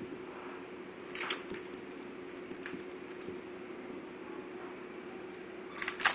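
Small metallic clicks and taps as copper wire and a terminal are handled and fitted into an ultrasonic welder's tooling, with a louder burst of sharp clicks near the end, over a steady low hum.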